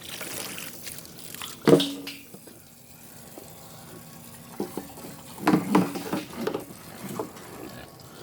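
Water running and trickling, with a few short animal calls about two seconds in and again around six seconds in.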